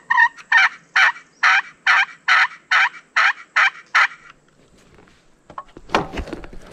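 Turkey call sounding a series of about nine hen yelps, evenly spaced at a little over two a second, after a short two-note opening. A few clicks and rustles near the end.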